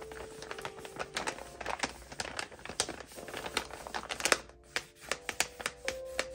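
Paper crinkling and rustling with many sharp clicks and taps as a handmade paper blind bag is handled and opened. Background music with a few sustained notes runs underneath.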